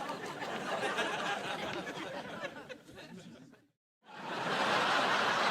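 Sitcom studio audience oohing in reaction, mixed with some laughter, which fades away about three and a half seconds in; after a brief dead-silent gap, another audience "ooh" swells up.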